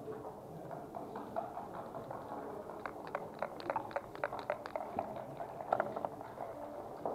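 Backgammon checkers clicking on the board, then dice rattling in a dice cup as a quick run of sharp clicks through the middle, over a low murmur of voices.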